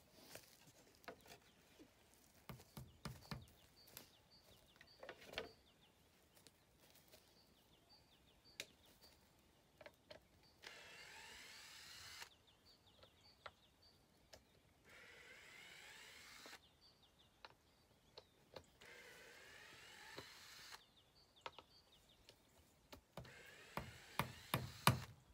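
Cordless drill running in three separate bursts of about two seconds each, working on MDF board fixed to a wooden pallet frame. Scattered light taps and knocks of hand work fall between the bursts.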